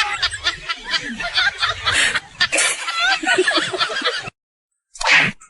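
Chickens clucking in a busy stretch of short calls that cuts off suddenly about four seconds in, followed by a brief burst of noise near the end.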